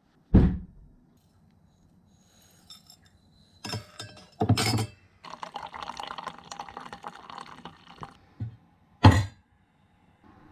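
Water from a dispenser's spout running into a stainless steel mug with a spoon in it for about three seconds. Before the fill there are sharp metallic clinks and knocks, and a single loud knock comes about a second before the end.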